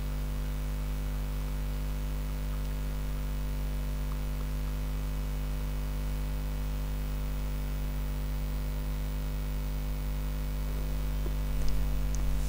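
Steady electrical mains hum with its stack of overtones, carried on the recording, with a few faint clicks near the end.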